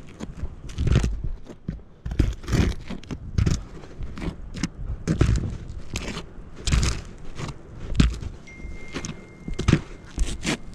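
Irregular thuds, scuffs and scrapes of a roofer moving on asphalt shingles and handling roofing material, about one or two a second.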